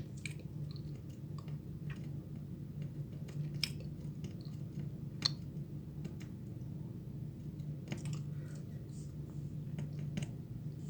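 Small, scattered clicks and ticks of hand tools such as tweezers working on a phone's circuit board, two of them sharper than the rest, over a steady low hum.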